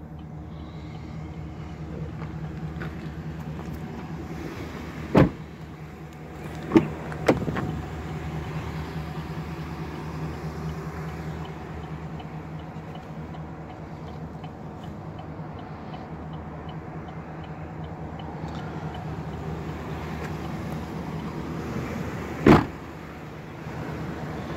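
Steady low hum of the Silverado 2500's 6.0-litre V8 idling, heard from inside the cab. A few sharp knocks cut across it: one about five seconds in, two close together a couple of seconds later, and a loud one near the end.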